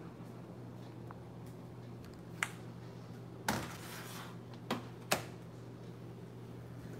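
A few light, sharp clicks and taps, four in all, the loudest about three and a half seconds in, over a steady low hum.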